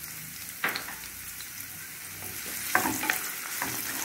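Chopped onion sizzling in hot oil with cumin seeds in a nonstick frying pan, being sautéed until pinkish. There is a single knock about half a second in, then a wooden spatula scrapes and stirs the pan in repeated strokes from about three seconds in.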